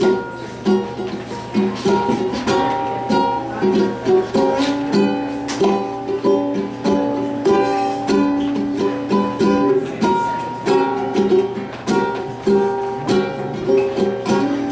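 Ukulele strummed in a run of chords, with no singing.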